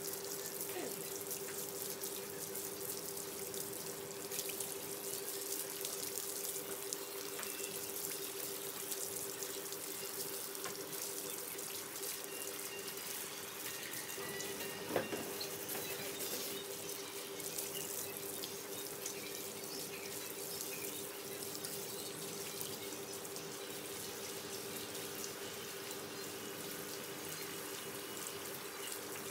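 Water running steadily from a hand-held hose, splashing over a wet dog's coat and onto a tiled floor, with a steady hum underneath. A single short knock about halfway through.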